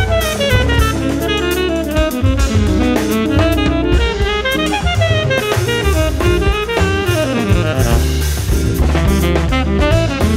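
Jazz band playing: tenor saxophone, double bass and drum kit together, with fast runs of notes sweeping up and down over busy drumming.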